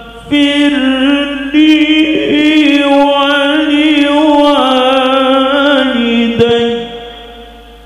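Male qari reciting the Qur'an in melodic tilawah style into a microphone, holding long notes with wavering ornaments and trailing off near the end.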